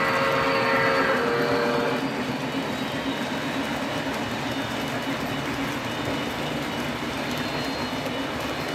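A model steam locomotive's whistle sounds a steady chord that stops about two seconds in. Under it and after it, model train wheels rumble and clatter steadily on the track as a passenger train and a freight train roll past.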